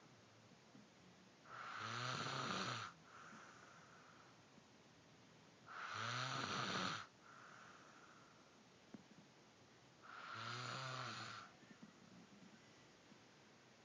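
Snoring: three long snores about four seconds apart, each a little over a second long and followed by a softer breath.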